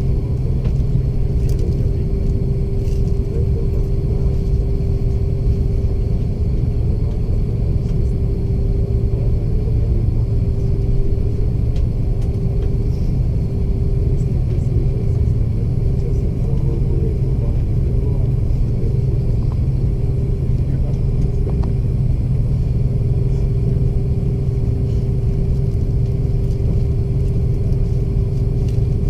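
Steady cabin noise inside an Airbus A330 airliner: a loud, even rumble of the jet engines and airframe, with a steady hum running through it.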